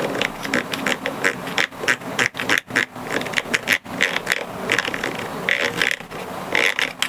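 Irregular, quick clicking of keys being pressed on a Roccat Vulcan 120 AIMO mechanical keyboard, several clicks a second.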